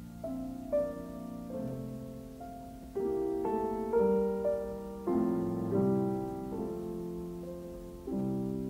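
Piano music: chords struck about once a second and left to ring down between strikes, the loudest around four seconds in.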